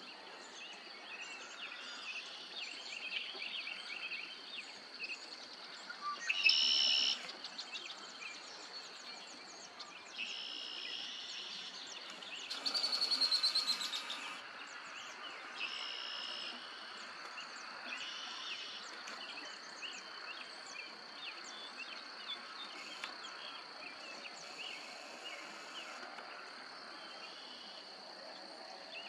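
Evening pond ambience: a steady high-pitched insect trill with birds singing over it in short phrases, the loudest about six seconds in and again from about twelve to fourteen seconds in.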